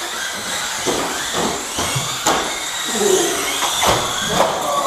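Box-stock Dromida electric RC cars racing: small electric motors whining and rising and falling in pitch as they speed up and slow down, with several sharp knocks scattered through.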